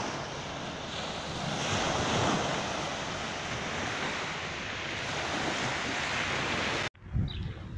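Small sea waves washing onto the shore, a steady rushing that swells and eases, with wind on the microphone; it cuts off suddenly near the end.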